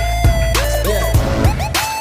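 Background electronic music: synth notes that slide up in pitch over a deep, steady bass.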